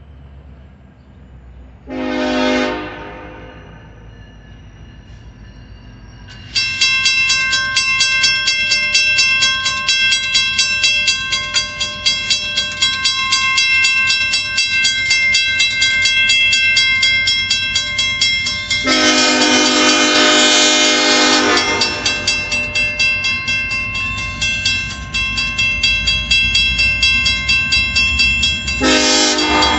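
A diesel locomotive horn sounds a short blast, then a grade-crossing bell starts ringing rapidly about six seconds in and keeps ringing. A long horn blast comes about two-thirds of the way through, and another begins near the end.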